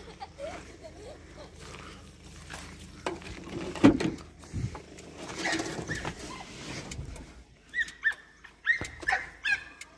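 A car door shuts with one sharp thud about four seconds in. From about eight seconds on, a dog whines in a quick run of short, high, falling yelps, fretting at being left outside the car.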